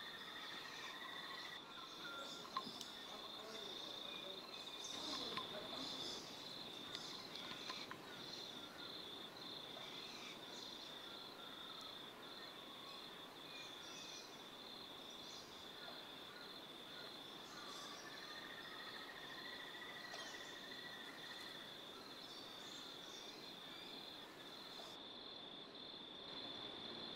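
Faint outdoor ambience of an insect chirping, a high pulsed note repeating evenly without pause. A fainter drawn-out higher call comes in near the start and again about two-thirds of the way through.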